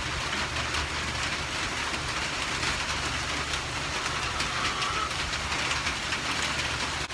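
Rain falling steadily and fairly hard, an even hiss of drops with a steady low rumble underneath and no distinct thunderclap.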